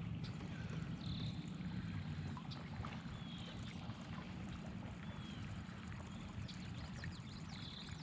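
Water trickling and lapping around a kayak, with a steady low rumble and a few faint, short, high bird chirps.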